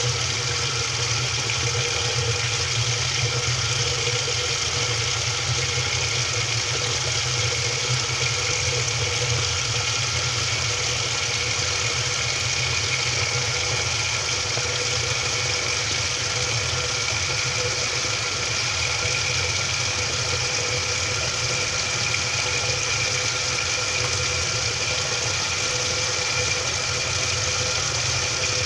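Washing machine running, heard from a camera inside the drum: a steady mechanical hum with a constant whine over it, unchanging throughout.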